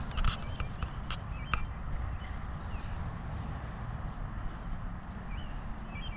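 Outdoor ambience on a golf course: a steady low rumble of wind on the microphone, with small birds chirping and trilling in the background. A few sharp clicks come in the first second and a half.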